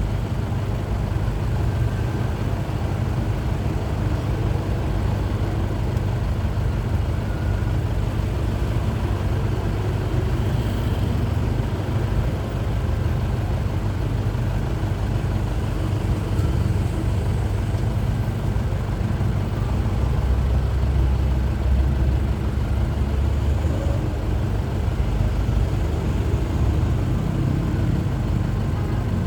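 Truck's diesel engine running with a steady low drone, which swells briefly about two-thirds of the way through.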